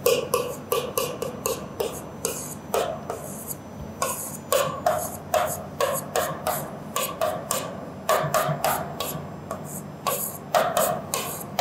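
Marker writing on a whiteboard: a steady run of short, squeaky strokes as Korean letters are written out.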